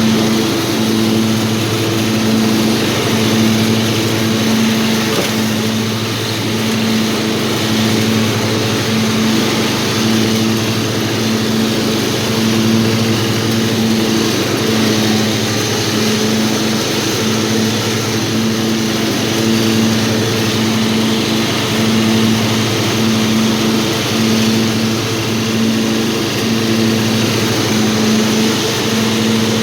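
Old riding lawnmower's small engine running steadily at a constant speed, its tone wavering slowly and evenly about once a second.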